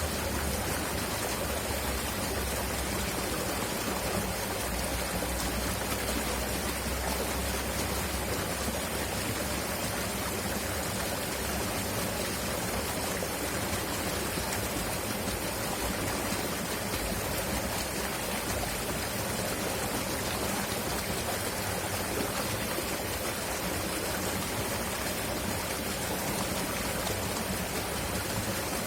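River water flowing steadily and loudly, a continuous even rush.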